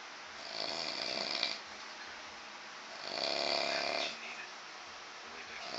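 A man snoring, a rasping snore of about a second roughly every two and a half seconds: two full snores, with a third starting near the end.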